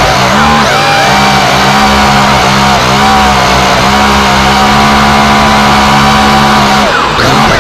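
A multicopter's electric motors and propellers whining loudly from close by, the pitch gliding up and down as the throttle changes.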